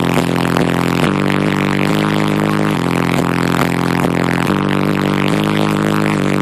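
Bass-heavy music played loud through a car audio system, with deep bass notes changing about every second.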